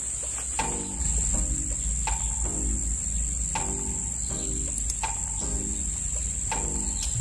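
Steady high-pitched drone of insects, with background music repeating a short phrase about every second and a half. The drone grows louder about a second in.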